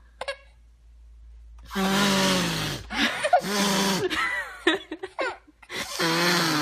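A baby laughing, with loud drawn-out laughs about two seconds in and again near the end, and wavering giggles between them.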